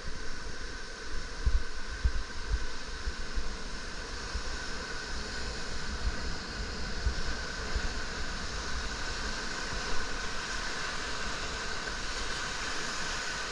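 Rushing whitewater of a Colorado River rapid, the hiss of the water filling in as the raft drifts into the waves, with wind gusts buffeting the microphone.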